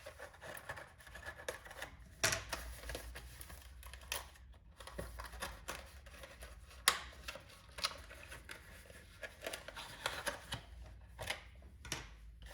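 A small knife cutting open a product box, then the packaging being opened and handled: irregular scratching, rustling and clicks, with one sharp click about seven seconds in.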